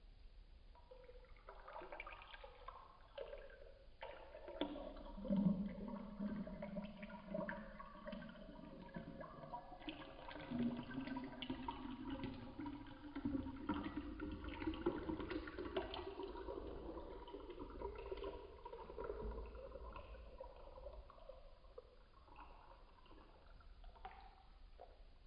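Water poured in a thin stream into a tall glass tumbler, splashing and gurgling, slowed down; the pitch of the filling glass climbs slowly as the water level rises.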